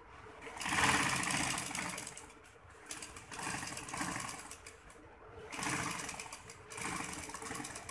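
Domestic straight-stitch sewing machine stitching a seam through lace and embroidered fabric, running in three spurts of about two seconds each with short pauses between as the fabric is repositioned.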